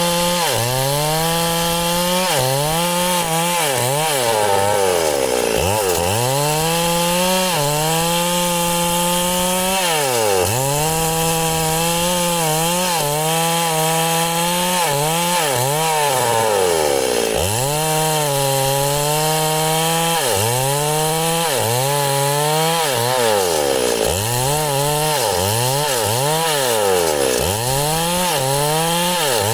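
Chainsaw cutting through wood, its engine repeatedly bogging down in pitch as the chain bites under load and revving back up between cuts.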